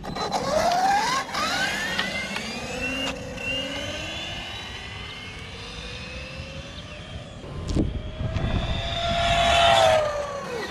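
Brushless electric motor of a Redcat RC-MT10E 1/10 scale RC monster truck on a 3S LiPo, whining sharply up in pitch as the truck accelerates away at full throttle on a speed run, then fading with distance. A short knock comes about eight seconds in. Near the end the whine comes back loud and drops in pitch as the truck slows.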